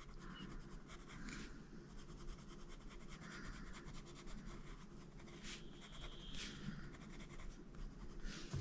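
Faint scratching of a Faber-Castell Polychromos coloured pencil shading on paper in a series of soft strokes.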